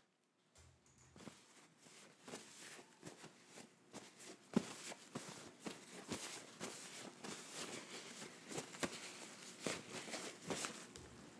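Irregular soft clicks and small taps close to the microphone, a few every second, with one sharper click about four and a half seconds in.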